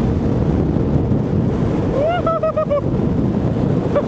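Wind buffeting the microphone at speed on a downhill skateboard run, a loud, steady rush. About two seconds in, a brief high-pitched call rises, then repeats in quick short pulses.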